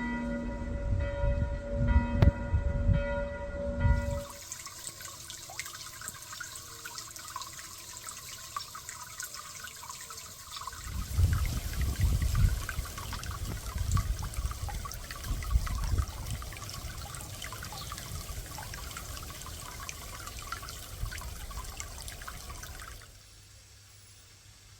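Water trickling and splashing in a garden pond, heavier from about eleven seconds in. A ringing bell-like tone with several overtones sounds first and cuts off about four seconds in.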